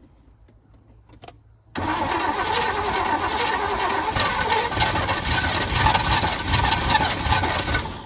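1985 Chevy C10 pickup's engine cranking on the starter for about six seconds without catching, after a faint click. The timing of its newly installed HEI distributor is still being set, so the engine is not yet firing properly.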